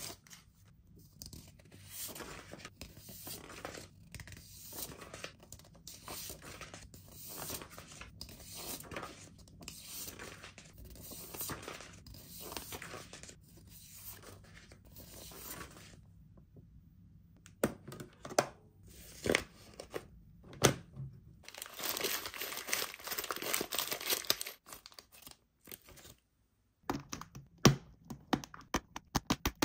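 Paper templates and plastic sleeve packaging being handled, rustling and crinkling, with a denser stretch of crinkling about three-quarters of the way through. Near the end, plastic Lite-Brite pegs click one after another into the pegboard grid.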